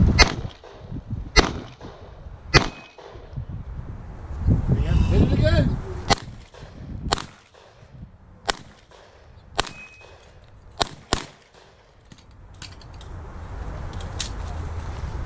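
Pistol shots fired one at a time, roughly a second apart, about ten in all, with a pause of a few seconds after the first three.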